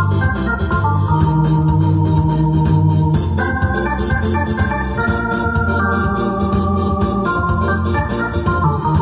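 Electronic arranger keyboard playing a melody of held, organ-like notes over a steady bass line and a running accompaniment beat.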